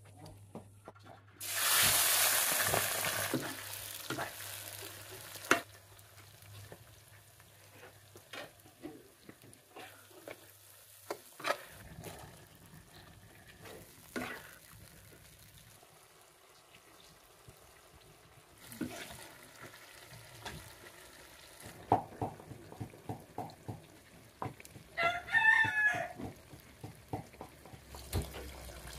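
Food dropped into hot oil, sizzling loudly from about a second and a half in and fading over a few seconds, followed by scattered clicks and knocks of utensils being stirred in the pan. A rooster crows briefly near the end.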